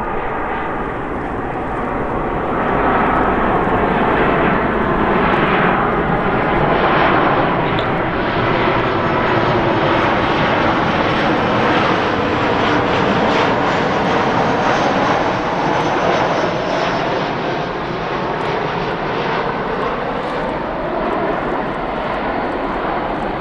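Boeing 737-800 jet airliner arriving, its CFM56-7B turbofan engines giving a steady, loud jet noise that swells about three seconds in and holds as the plane passes close by.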